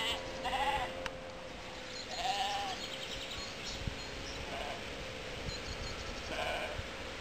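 A flock of sheep bleating, several separate bleats a second or two apart.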